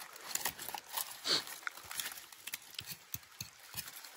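Close, irregular wet clicks and smacks of someone eating sticky rice by hand, chewing and handling the rice, several a second. One louder short squeak, falling in pitch, comes about a second in.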